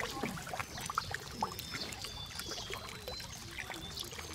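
A dense crowd of catfish churning and splashing at the water's surface: a steady wash of sloshing water broken by many small, irregular slaps and clicks.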